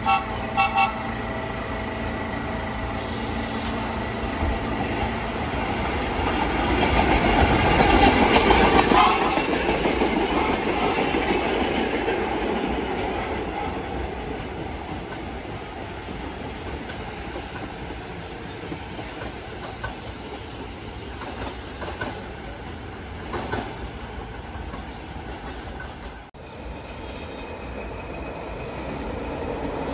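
Vintage New York subway train passing close by: motor and wheel noise with rail clatter build to a peak about a third of the way in, then fade slowly as the train moves away. Near the end the sound breaks briefly and a quieter, distant train sound follows.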